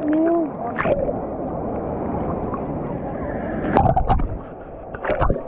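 Rough sea water churning and sloshing, with a short call from a voice at the start and a couple of sharper splashes about four and five seconds in.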